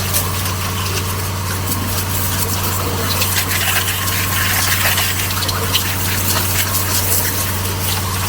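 Pressure washer running: a steady pump and motor hum under the hiss of the water jet spraying.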